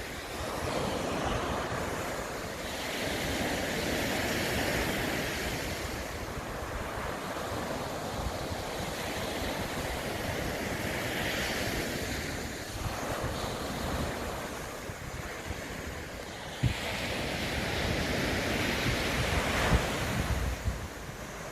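Sea waves breaking on the shore, the surf swelling and falling away every several seconds. Wind buffets the microphone throughout, with a couple of sharp thumps late on.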